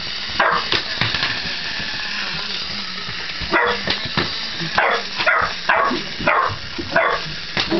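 A dog barking: one bark near the start, then a steady hissing whir for about three seconds, then rapid excited barking about twice a second through the rest.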